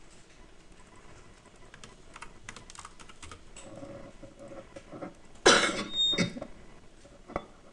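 Computer keyboard typing and mouse clicks at a desk as CAD commands are entered, in scattered, irregular taps. About five and a half seconds in comes a loud, short burst, the loudest thing heard, followed by a weaker second one.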